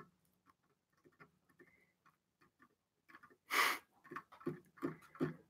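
Faint scattered clicks and taps, with a short louder burst of noise about three and a half seconds in, followed by a quick run of clicks.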